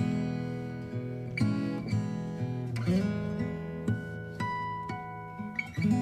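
Background music on plucked acoustic guitar, with notes struck every second or so and left to ring.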